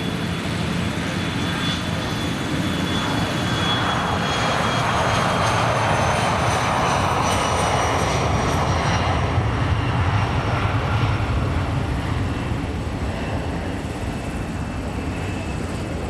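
Bombardier Challenger business jet's turbofan engines running as the jet passes: a roar that swells through the middle and eases toward the end, with high whistling whines that slowly fall in pitch.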